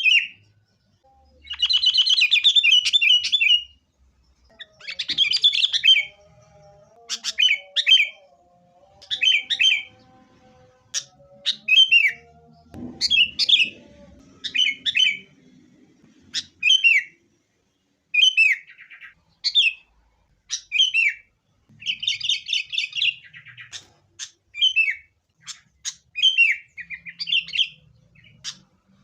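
Sooty-headed bulbul singing: short phrases repeated every second or two, with a longer, rapid chattering run near the start and again about three-quarters of the way through.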